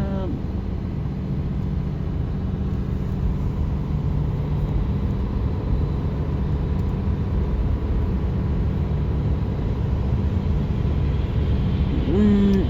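Steady low road and engine rumble heard inside a car driving along a highway. Near the end a brief high-pitched voiced call cuts in.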